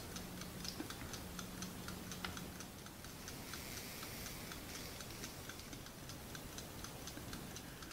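Quiet, fast, even ticking, typical of the clock radio's clock movement running. A faint low hum sits under it for the first few seconds.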